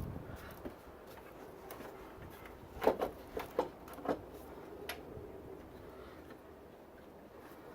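A few sharp metallic clinks and knocks of tools and parts being handled during engine reassembly: four or five in quick succession about three seconds in, the first loudest, then one more a second later.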